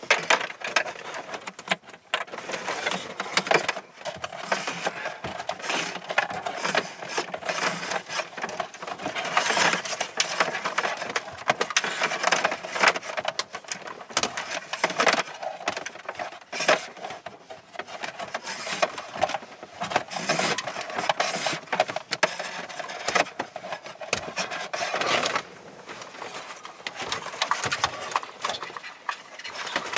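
Cables and plastic wiring-harness connectors being handled and pushed through a car's dashboard opening: a continuous clatter of rustling, scraping and small clicks, turning quieter near the end.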